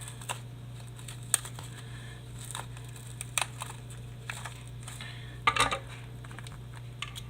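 Paper crinkling and scattered small clicks and taps as the paper casing of a firework mortar shell is pulled apart by hand, over a steady low hum.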